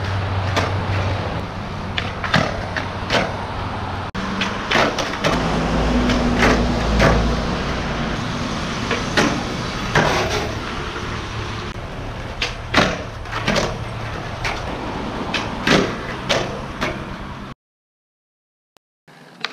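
Background music with deep held bass notes that change pitch every few seconds, over a run of sharp, irregular clacks. It cuts to silence near the end.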